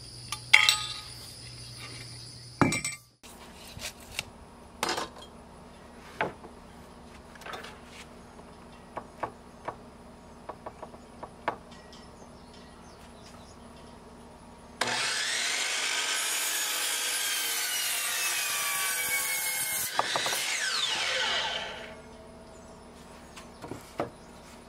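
Electric miter saw cutting a wooden board: it runs loud and steady for about seven seconds, then winds down with a falling whine. Before the cut come scattered knocks and clacks of boards being handled and set in place.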